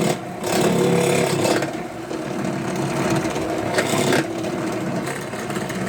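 Drill press running an Irwin step bit through a flattened dome strut: a steady motor tone under the grinding of the bit cutting. The sound eases briefly just after the start and again about two seconds in.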